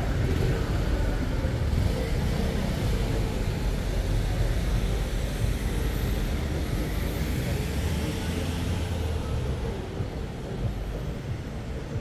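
City street traffic: cars and other vehicles running and passing, a steady low rumble.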